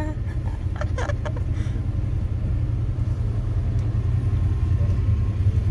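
Steady low rumble of a minibus engine, heard from inside the passenger cabin, with faint voices in the first second or so.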